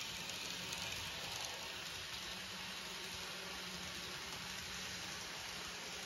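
N scale model train running on the track: a steady, faint rolling hiss of small wheels on rail with a low motor hum underneath.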